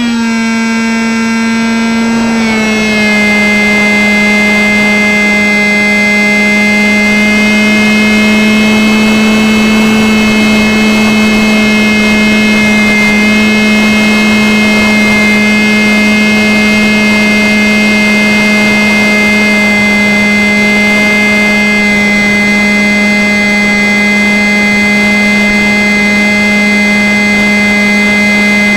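Electric motor and propeller of a ParkZone Stryker flying wing, heard from a camera mounted on the plane: a steady high whine in flight. The pitch drops about two and a half seconds in as the throttle eases, then holds steady, with a rush of air underneath.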